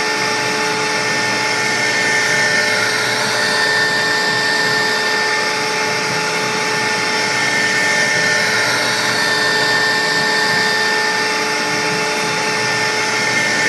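CNC router spindle running with a steady high whine over a rushing noise, cutting a sign.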